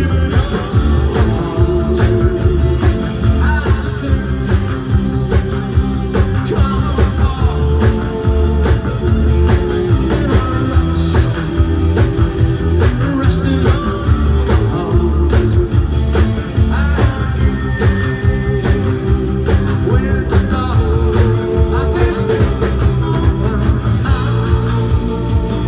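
New wave rock band playing live: electric guitar and bass guitar over a steady beat, with vocals.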